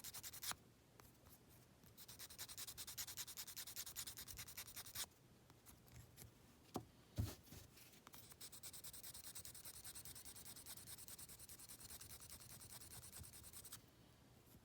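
Fine-grit foam sanding stick rubbed back and forth over a cement-welded seam in polystyrene model plastic, smoothing it flush. Quick, faint strokes come in two runs: the first is short, and the second, after a pause with a couple of light knocks, is longer.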